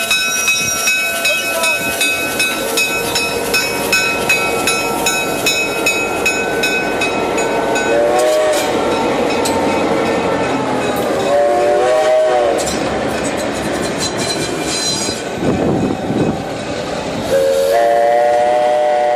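Diesel locomotive passing at close range with its bell ringing steadily, then sounding its horn in three blasts, the last one long.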